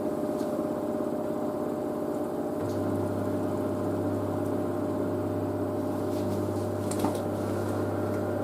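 LG DirectDrive washer dryer running, its direct-drive motor turning the drum with a steady hum of several even tones. A low drone underneath drops out near the start and comes back about two and a half seconds in, and there is one short click about seven seconds in.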